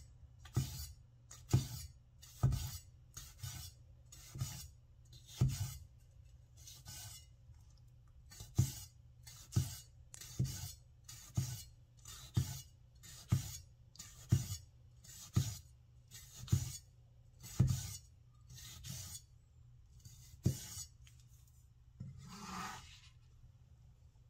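Winco Chinese vegetable cleaver dicing tomato slices on a wooden cutting board: about one chop a second, each a crisp cut ending in a knock on the board. Near the end, the blade scrapes once across the board, scooping up the diced tomato.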